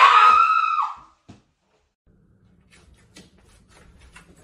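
A man's shrill scream of fright, about a second long, dropping in pitch and cutting off at the end. After a pause, faint clicks and a low hum.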